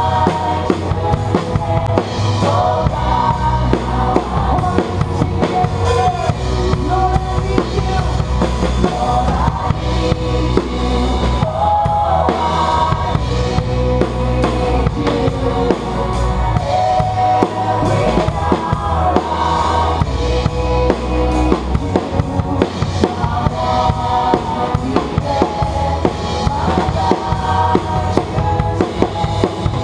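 Acoustic drum kit played live: bass drum, snare and cymbals keeping a steady beat under the rest of a band's music.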